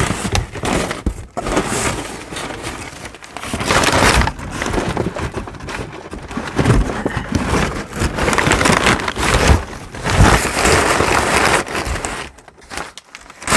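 Crumpled kraft packing paper crinkling and rustling as hands dig through it in a cardboard box, in irregular loud bursts with a brief lull near the end.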